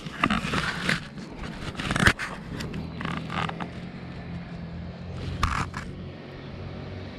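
Footsteps scuffing and scraping on a path, a few uneven steps, while a low steady engine hum comes up in the second half.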